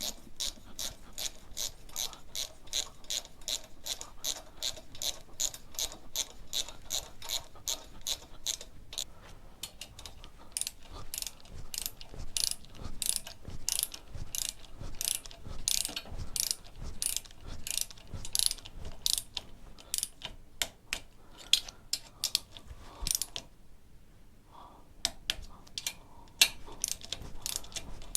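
Socket ratchet wrench clicking as bolts on the motorcycle engine's top end are run down. It starts as an even train of about four to five clicks a second, then turns into louder, uneven strokes, pauses briefly near the end, and starts again.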